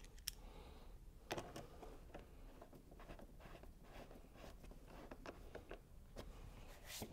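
Faint, irregular clicks and taps of a small hand tool on a bolt as it is fitted and turned.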